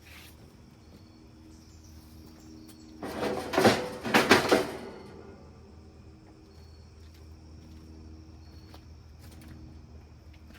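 A short cluster of sharp knocks and rattles about three to five seconds in, then a few faint scattered ticks over a steady low hum.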